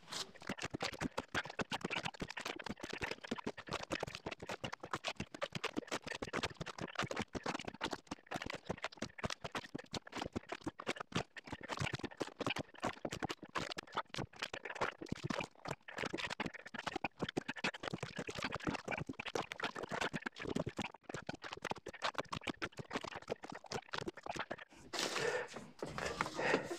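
Rapid, continuous clatter of cut firewood chunks knocking together as they are tossed off the bucking table into a wooden-sided trailer.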